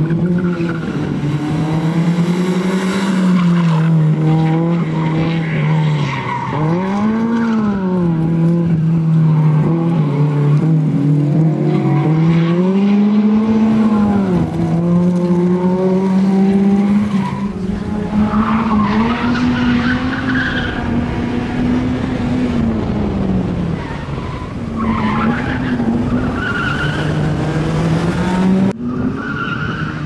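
Suzuki Swift rally car's engine being revved up and down continuously as it is driven hard through tight turns and slaloms. Tyres squeal at times, mostly in the second half.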